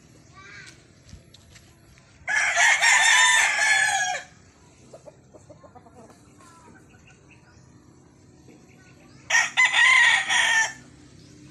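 Gamefowl rooster crowing twice: one crow a couple of seconds in and another near the end, each lasting one and a half to two seconds.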